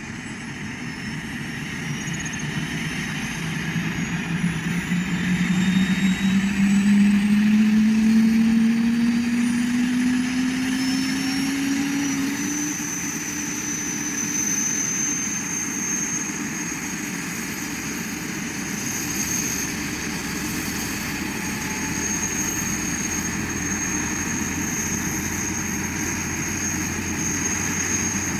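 Helicopter spooling up for takeoff. The engine and rotor note climbs steadily in pitch and loudness over the first dozen seconds, then holds at a steady high whine with the rotor running.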